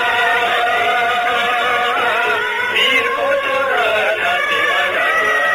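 Music with a sung melody, the voice holding long notes that waver and glide between pitches.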